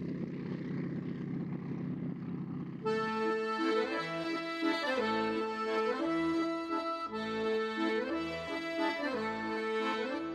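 A steady drone of propeller fighter-plane engines for about the first three seconds, then accordion music comes in, playing a slow tune of held chords.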